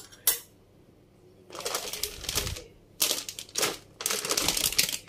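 A plastic bag of shredded cheese crinkling as it is handled, in four or five rustling bursts, with one sharp click just before.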